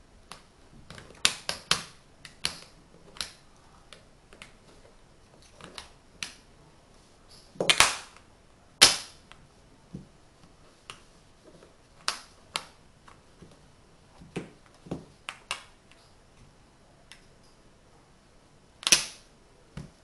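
Tegu magnetic wooden blocks clicking and clacking as their embedded magnets snap them together and they are set on the table. An irregular string of sharp wooden clicks, the loudest a little before and after 8 seconds in and again near the end.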